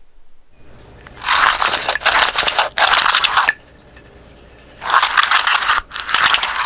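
Hand-held recoil pull-start unit from a motorized bike engine, its cord pulled out and let wind back in: a rough scraping whir of the rope and plastic pulley turning in the metal housing against the rewound spring. Two spells of a couple of seconds each, the first about a second in, the second about five seconds in.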